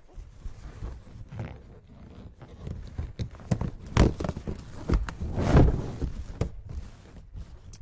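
Inflated latex balloons rubbing, squeaking and bumping together as a cluster of four is pressed and twisted onto the top of a balloon column. There are irregular thumps, the loudest about four and five and a half seconds in.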